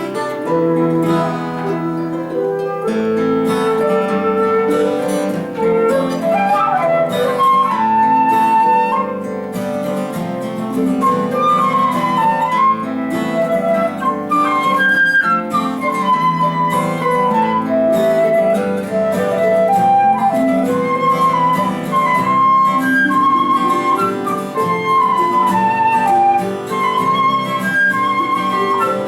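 Flute playing an ornamented melody over plucked Celtic harp chords in an instrumental folk tune.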